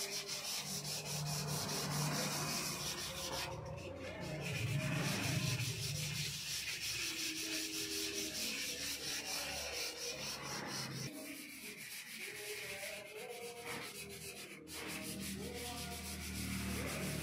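Sandpaper rubbed back and forth by hand over a raw sonokeling (Indonesian rosewood) slab, an ongoing scratchy rubbing.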